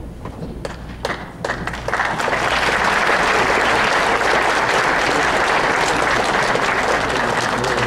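Audience applauding: a few scattered claps about a second in, swelling within another second into full, steady applause.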